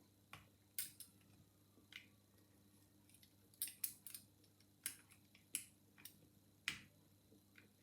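Faint, irregular metallic clicks, about a dozen, from a wire pick and tension tool working the levers inside a Chubb 5-lever mortice lock while it is being picked.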